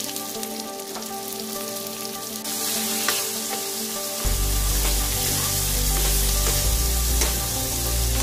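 Pork and onion slices sizzling as they fry in oil in a nonstick frying pan, the sizzle growing louder a couple of seconds in. A low rumble joins about four seconds in.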